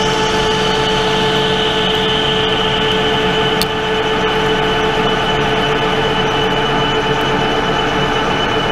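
Pratt & Whitney Model B metal lathe running under power with a steady whine of several fixed tones, taking a cut in stainless steel at about 490 RPM. A single brief click comes about three and a half seconds in.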